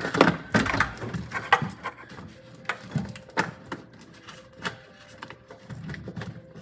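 Irregular clicking, crackling and rustling of a car's wiring harness being worked apart by hand as the plastic loom is stripped off the wires. The clicks come thickest in the first second or so.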